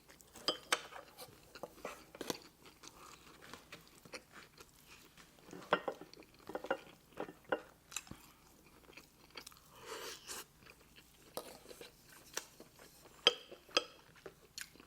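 Close-up mouth sounds of a person chewing food, with wet smacks and crunchy bites coming in irregular clicks.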